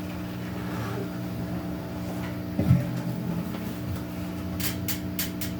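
Steady electrical hum from a guitar amplifier left on, with a low thump about two and a half seconds in and a few sharp clicks near the end.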